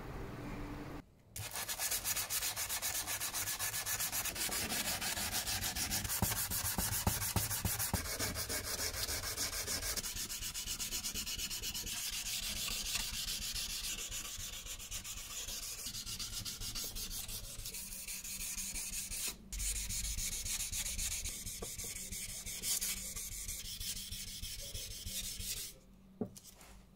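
Hand sanding a steel scissor blade with sandpaper: fast back-and-forth rubbing strokes of abrasive on metal. There is a brief pause about two-thirds through, and the rubbing stops shortly before the end.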